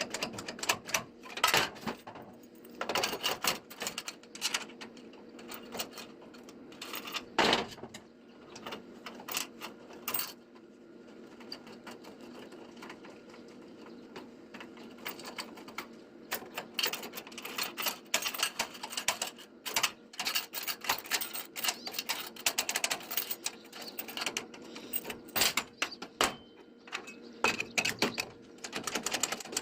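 Irregular sharp metal clicks and taps from work on iron parts, coming in quick clusters with a quieter stretch in the middle, over a steady low hum.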